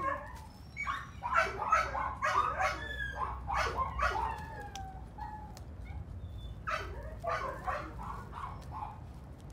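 Dogs barking and yipping in quick runs of short calls, some falling in pitch: one run over the first few seconds and a shorter one about seven seconds in.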